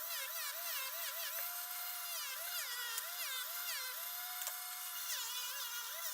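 Dremel 4000 rotary tool with a polishing wheel running at high speed. Its whine repeatedly dips and climbs back in pitch as the wheel loads and unloads against the silver pocket watch case.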